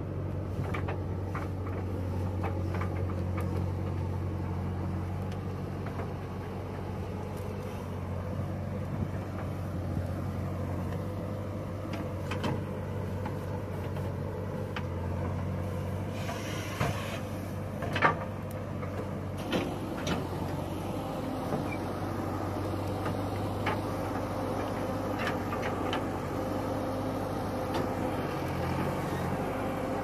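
A JCB 3DX backhoe loader's diesel engine running steadily as the backhoe digs and loads soil. Occasional sharp clanks come from the bucket and arm working, the loudest about eighteen seconds in.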